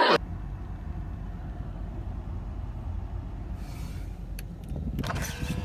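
Car engine idling, a steady low rumble, with a few faint clicks and some faint pitched sounds near the end.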